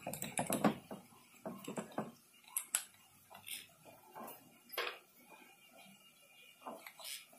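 Scattered metallic clicks and clinks as a homemade cutting disc on a bolt arbor is fitted into a drill's keyed chuck and handled, densest in the first second, then single clicks every second or so.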